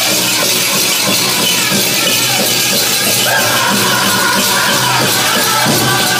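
Powwow drum group singing a Prairie Chicken dance song over the steady beat of a big drum, with the dancers' bells jingling. A high-pitched voice line comes in about three seconds in.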